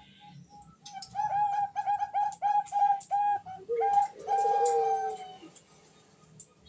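Female zebra dove (Bangkok perkutut) cooing. A quick run of about ten short staccato coos ends in a longer, drawn-out coo about four seconds in, then the bird falls quiet. This is the female's call to a male.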